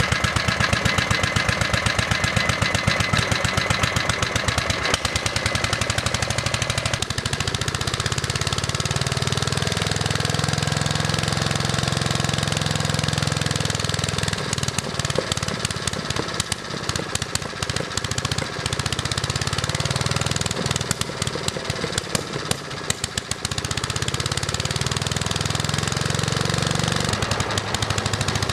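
Internal combustion engine running, a rapid steady beat of firing strokes that turns uneven about halfway through before settling again near the end.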